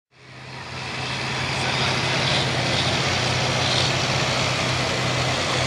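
Supercharged engine of a super modified two-wheel-drive pulling truck idling steadily after its pull, fading in from silence at the start.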